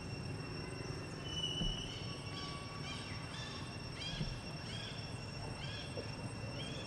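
A run of short, high chirping calls, about one or two a second, starting about two seconds in. Under them are a steady high-pitched whine and a low background rumble.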